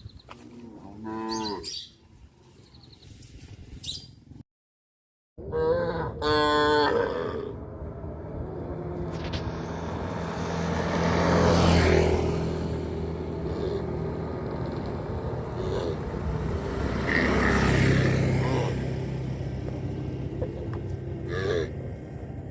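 Cattle mooing several times: shorter, higher calls near the start, then long, low moos around the middle and again later. The sound drops out completely for about a second, about four seconds in.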